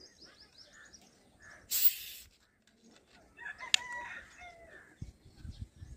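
A rooster crowing once around the middle, with a brief loud hiss about two seconds in and a few low thumps near the end.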